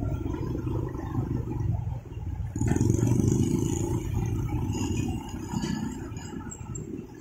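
Road traffic crossing a railway level crossing close by: truck engines running as a line of trucks, a tanker truck and motorbikes pulls across. It gets louder about two and a half seconds in as the tanker and a motorbike pass near, then eases off.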